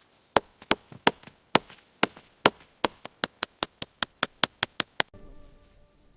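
A hand tool striking wood over and over: about two dozen sharp blows that come faster toward the end, then stop suddenly about five seconds in.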